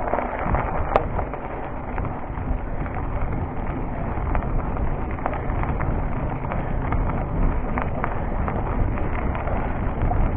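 Cube Stereo full-suspension mountain bike rolling over a gravel road: the tyres crunch on loose stones, with scattered clicks and rattles from the bike. Wind buffets the chest-mounted action camera's microphone.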